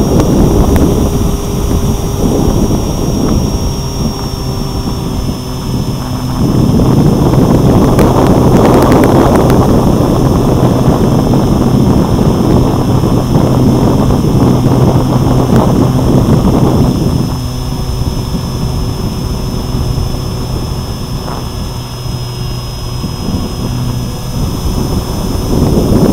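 Electric RC plane's motor and propeller running in flight, heard from an action camera on the wing, with a steady high whine and heavy wind buffeting on the microphone. The buffeting grows louder and rougher for several seconds in the middle.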